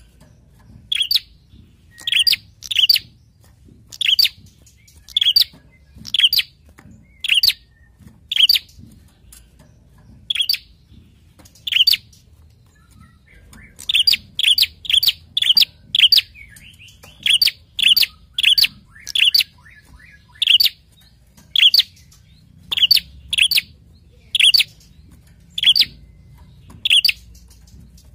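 Tailorbird (prenjak klawu) giving loud, sharp, high chip calls over and over, about one every second or so, with a quicker run of calls around the middle. The calls are the excited, agitated calling of a bird that has been fired up.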